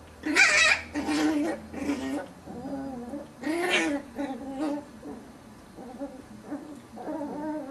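Puppies play-growling and yipping as they wrestle: a string of short, rough, squeaky growls and yelps, loudest in the first four seconds, with softer ones near the end.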